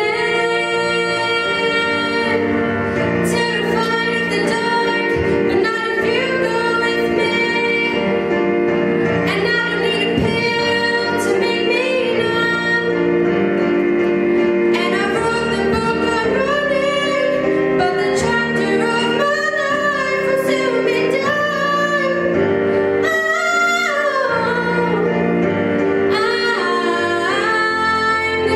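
Female vocalist singing a song into a microphone over instrumental accompaniment, held chords running steadily under her melody.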